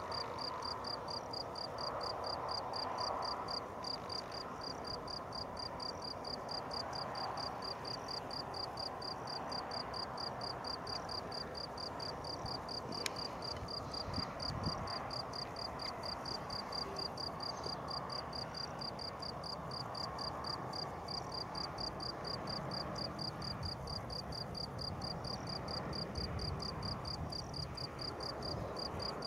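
Crickets chirping in a fast, even pulse, over the low, steady rumble of a distant jet airliner's engines as it comes in on approach.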